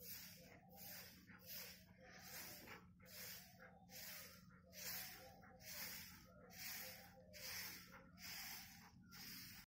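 Short-handled straw broom swishing across a bare dirt yard in quick repeated strokes, about two a second.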